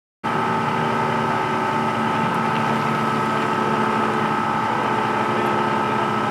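An engine running steadily at idle, a constant hum with several fixed tones.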